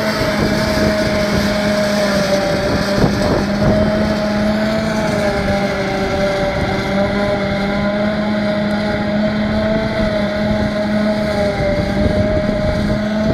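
John Deere tractor running under steady load, driving a JF 1350 trailed forage harvester as it chops grass and blows it into a silage trailer: a loud, even mechanical drone with a steady held hum.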